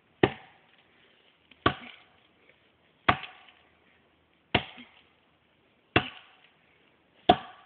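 An axe chopping into a standing tree trunk: six strikes at a steady pace, about one every second and a half, each with a short ring after the hit.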